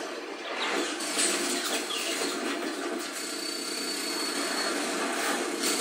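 Action-film soundtrack heard through a TV's speakers: a naval battle scene, a dense rush of sea and effects noise with sharp hits about a second in and again near the end.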